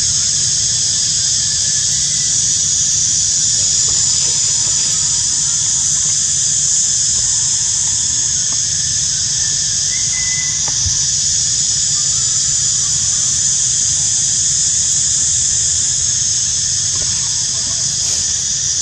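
A chorus of cicadas giving a loud, steady, high-pitched drone that does not let up, with a low hum underneath.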